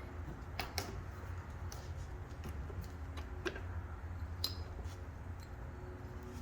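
A few light, separate metallic clicks and taps of bolts, nuts and plates being handled and fitted onto a snowplow blade's mounting, over a steady low hum.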